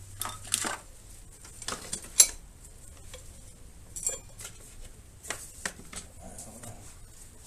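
Metal hand tools clinking and knocking: a 22 mm socket and wrench being handled. There are a few sharp separate clicks, the loudest about two seconds in.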